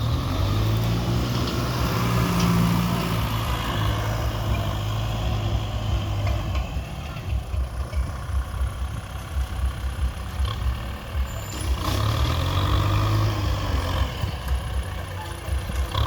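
Tractor engine running under load, its pitch rising and falling twice as the revs change, once near the start and again about twelve seconds in.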